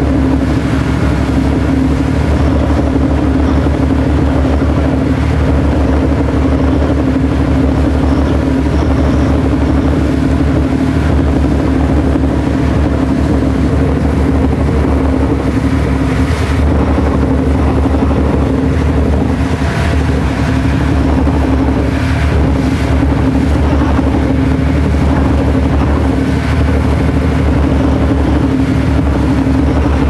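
Passenger ferry's engines running steadily under way: a loud, even drone with a strong low hum.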